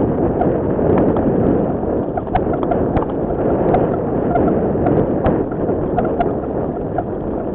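Wind rushing over the microphone of a camera riding on a mountain bike, with irregular sharp clicks and knocks as the bike bounces over a rough dirt trail.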